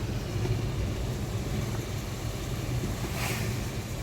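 A motor vehicle running steadily, with a continuous low hum and road noise; a brief hiss rises and fades a little past three seconds in.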